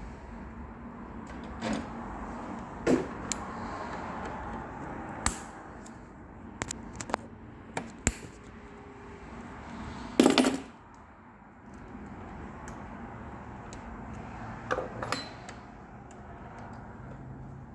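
Scattered metal clicks, taps and clinks of hand tools working on a Mercedes-Benz door lock mechanism being taken apart, with a louder clatter about ten seconds in.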